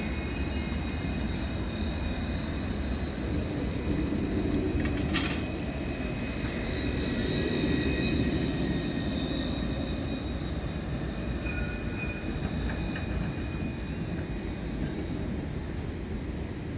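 Alstom Citadis low-floor tram rolling past close by on street track, its running noise swelling as it passes and then fading as it draws away. Thin steady high tones sound over the rolling noise, with one sharp click about five seconds in.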